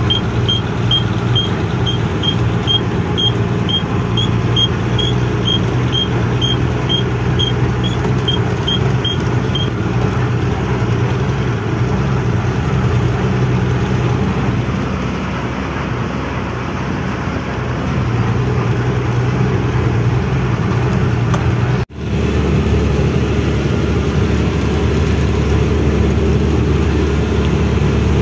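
12-wheel diesel truck running steadily on the road, its engine a continuous hum. A short high beep repeats about twice a second for the first ten seconds. About 22 seconds in the sound cuts abruptly to a steadier, lower engine note.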